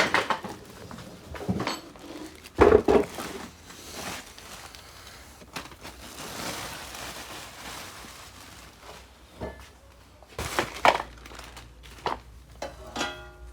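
Handling noises from unpacking a pressure washer: irregular knocks and clatters of parts being picked up and set down, with soft rustling between them. The loudest knocks come about three seconds in and again near eleven seconds, and a short quick rattle comes near the end.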